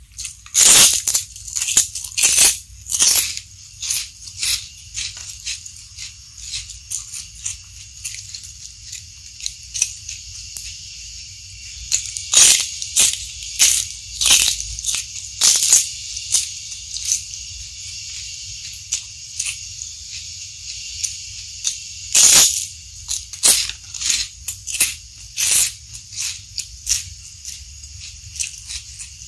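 Close-up eating sounds: crisp crunching bites of a large fried cracker and raw lettuce leaves, with chewing between them. The bites come irregularly, in clusters near the start, in the middle and a little past two-thirds of the way through, over a steady hiss.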